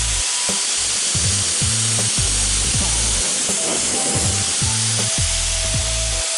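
Background music with a steady, repeating bass beat, laid over a constant hiss.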